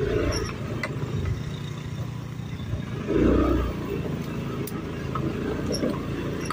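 Automatic (CVT) scooter engine running under load on a rough dirt trail, with a louder surge about three seconds in and scattered light clicks.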